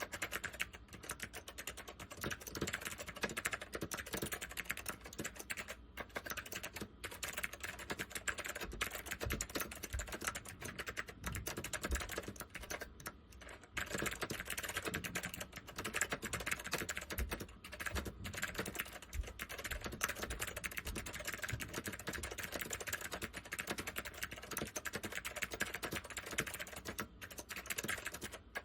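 Continuous fast typing on a Northgate OmniKey 101 keyboard with waxboiled white Alps SKCM switches: a dense run of key clicks and clacks, with a few short pauses.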